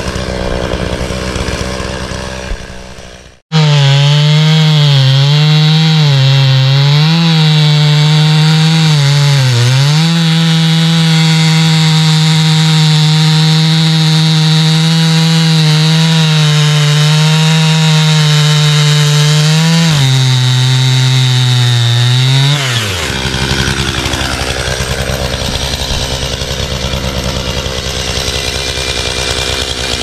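Chainsaw cutting through a downed pine log at full throttle. Its engine pitch dips and recovers under load, then holds steady, and falls away when the throttle is let off about three-quarters of the way through. Before and after the cut the saw runs rougher and noisier, with a brief dropout a few seconds in.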